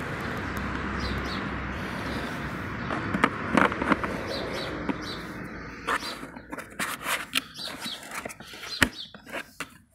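Sharp plastic clicks and knocks as hands handle lithium-ion battery packs in a cordless lawn mower's battery compartment. They come mostly in the second half, after a steady hiss in the first half.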